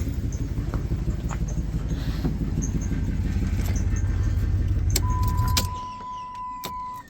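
5.7 L Hemi V8 in a 2006 Ram pickup idling, then switched off about five and a half seconds in, the rumble dropping away. A steady electronic beep sounds for about two seconds near the end, with a few light clicks.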